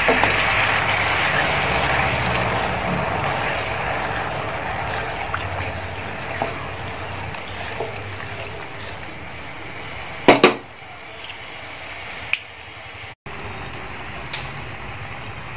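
Sugar syrup heating in a pan on the stove, a steady hiss and bubbling that fades gradually, with a few sharp knocks, the loudest about ten seconds in.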